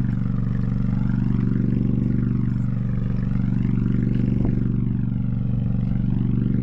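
Boat's diesel engine running steadily at low revs, an even hum that holds the same pitch throughout.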